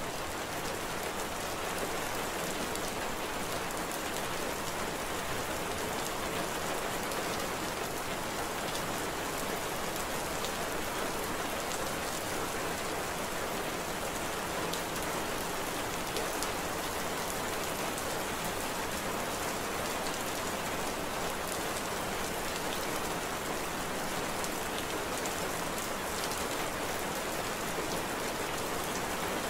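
Steady rain falling: an even hiss sprinkled with faint ticks of single drops.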